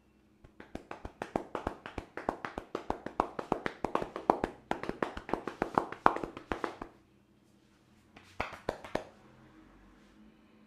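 Rapid hand taps and slaps of percussive head massage, about five or six strikes a second for some six seconds. After a short pause comes a brief run of four or five more.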